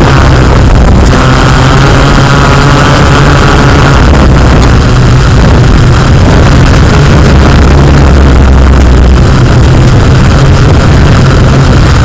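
Yuneec Q500+ quadcopter's electric motors and propellers running steadily and loudly while hovering, heard close up as a rushing noise over a low hum that shifts slightly in pitch now and then.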